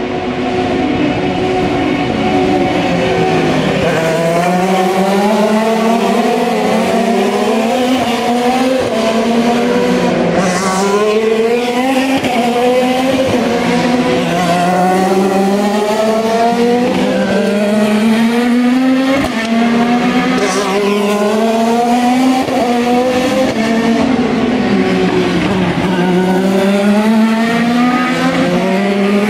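IndyCar race cars' twin-turbo V6 engines accelerating past, one after another with no gap: each engine's pitch climbs and drops sharply at every upshift, several cars overlapping.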